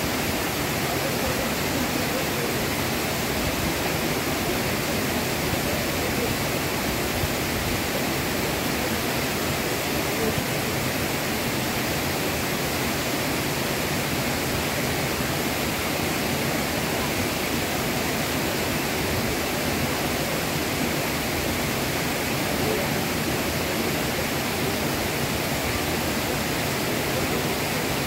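Molochny waterfall's falling water: a steady, even rush with no breaks.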